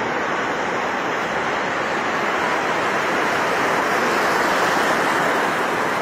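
Ocean surf: small waves breaking and washing through shallow water in a steady rush that swells a little in the middle.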